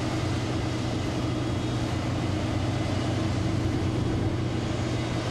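A steady heavy engine drone: a low hum under a wide rushing hiss that cuts in suddenly at the start.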